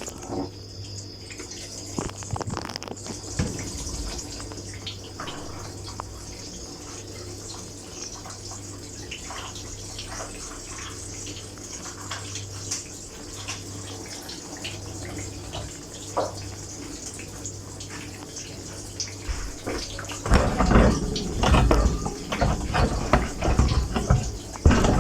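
Dishwasher running, heard from inside the tub: a steady low hum under trickling, splashing water and small clicks, then about twenty seconds in the water turns to a much louder, dense spraying.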